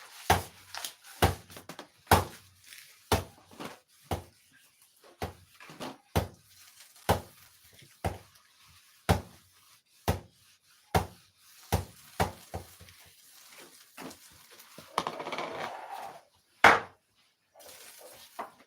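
Kitchen clatter: a run of sharp knocks of dishes and utensils, roughly one to two a second. A short scraping or rustling patch comes near the end, then one louder knock.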